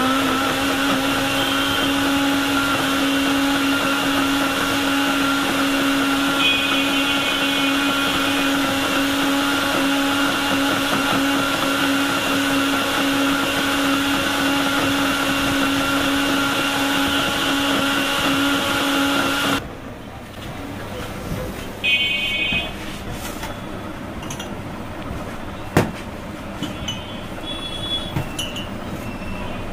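Electric countertop blender running at one steady pitch, blending a date shake, for about twenty seconds and then switching off abruptly. A vehicle horn toots twice, once over the blender and once after it stops.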